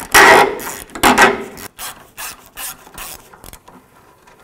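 Socket ratchet clicking in rasping runs as it backs a 15 mm engine mount nut off its stud: two long runs, then shorter, fainter ones about every half second, stopping about three and a half seconds in.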